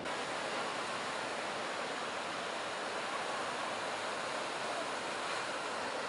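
Steady wash of breaking surf, a continuous even hiss of waves with no distinct individual crashes.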